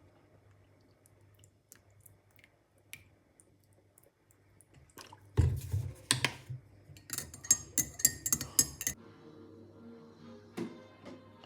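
Cutlery clinking and scraping against dishes: a few faint clicks, then about five seconds in a quick run of sharp clinks lasting a few seconds, followed by softer knocks.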